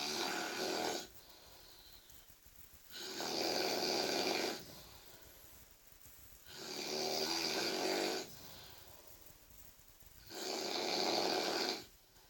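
A sleeping person snoring very loudly, heard from about five metres away: four snores, each lasting about a second and a half and coming roughly every three and a half seconds, with quiet breaths between.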